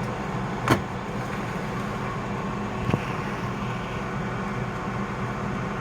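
Countertop air fryer running with a steady fan hum. Two sharp knocks cut through it, one under a second in and a fainter one about three seconds in.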